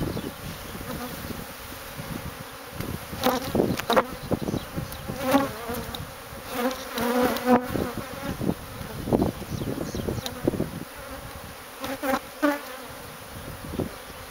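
Honeybees buzzing steadily around an opened colony, with scattered knocks and scrapes from comb being handled.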